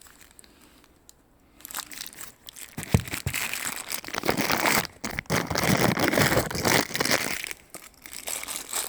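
Packaging being crinkled and rustled by hand, with small clicks and knocks, as a bicycle seat clamp is handled. It starts about a second and a half in and is loudest in the middle.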